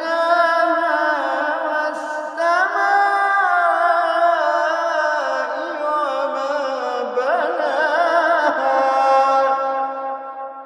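A man reciting the Quran in a slow, melodic chant, holding long ornamented notes. A new phrase begins about two seconds in and another about seven seconds in, and the voice fades out near the end.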